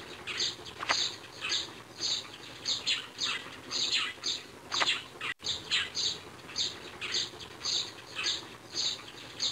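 Small birds chirping: a steady run of short, high chirps, each falling in pitch, several every second.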